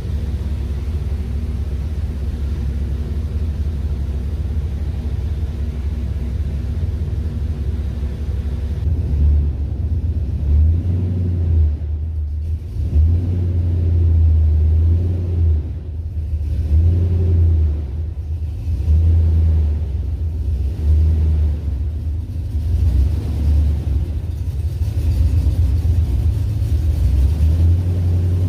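A vehicle engine running with a steady low rumble. From about nine seconds in, its pitch rises and falls repeatedly, as if the engine is being revved.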